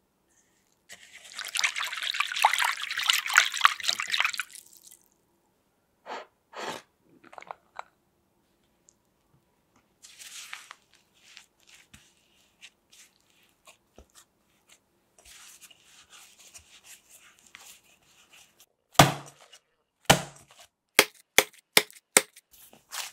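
A few seconds of hissing as dry ingredients are poured into a glass mixing bowl, then a spatula scraping and stirring shaggy bread dough. Near the end, soft bread dough is slapped down into the glass bowl again and again in quick thuds, the loudest sounds.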